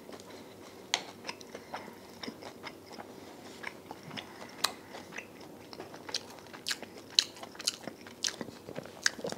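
A man chewing a mouthful of charred chicken thigh, picked up close by a clip-on microphone: many small, irregular clicks and crunches of chewing.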